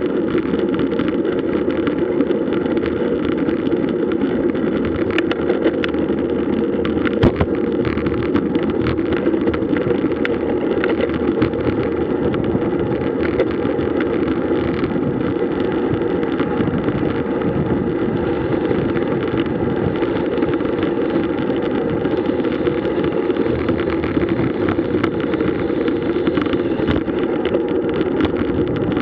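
Steady rushing wind and road noise from riding a road bike at speed, with scattered small clicks and knocks.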